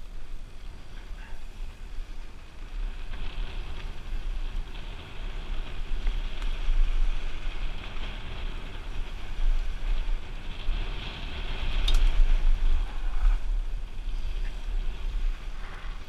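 Wind buffeting the microphone of a helmet-mounted camera on a mountain bike riding downhill, with the tyres running over a dirt trail; the rush swells and fades with speed, and there is a sharp click about three-quarters of the way through.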